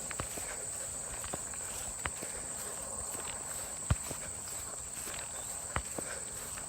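A hiker's footsteps in wet grass, with a sharp knock about every two seconds, over a steady high-pitched insect drone.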